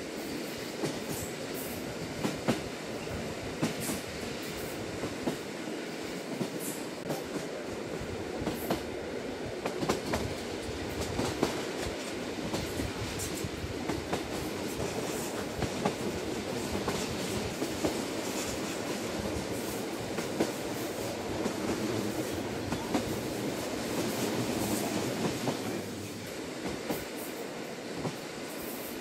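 Lilac limited express train running, heard from inside the passenger carriage: a steady rumble of wheels on track with frequent sharp clicks over the rails. The rumble eases a little near the end.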